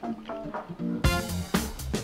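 Instrumental background music with pitched notes over a steady beat, getting fuller about a second in.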